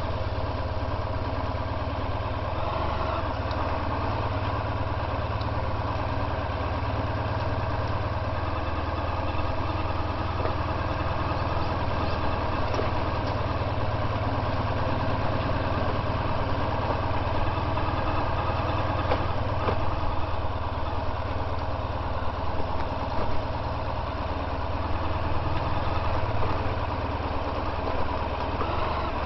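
Honda VFR1200X Crosstourer's V4 engine running steadily at low revs as the motorcycle is ridden slowly over a rough dirt track.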